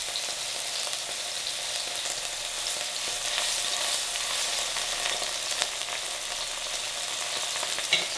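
Poplar fieldcap mushrooms frying in hot oil in a pan: a steady crackling sizzle with many small pops. Near the end comes one sharp clack as the tongs knock against the pan.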